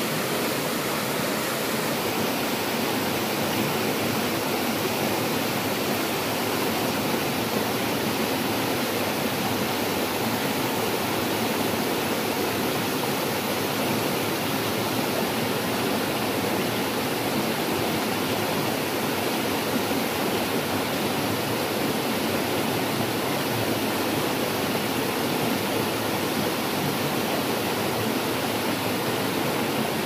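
Small waterfall pouring and splashing over rocks into a pool: a steady, even rush of water.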